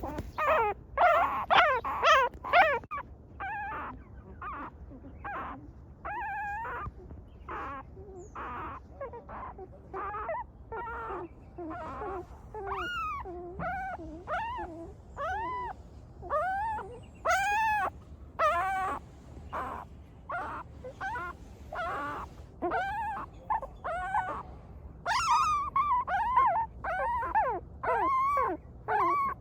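Newborn puppies whimpering and crying: a steady run of short, high-pitched whines that rise and fall, about one or two a second. The cries are loudest in the first few seconds.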